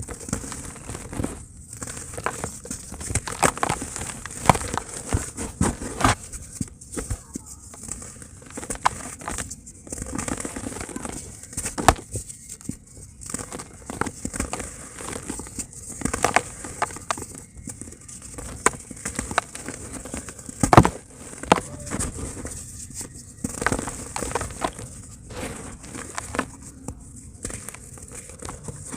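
Dry pure cement crumbling and being crushed in a tub: continuous irregular crunching and crackling with scattered sharp snaps, the loudest about two-thirds of the way through.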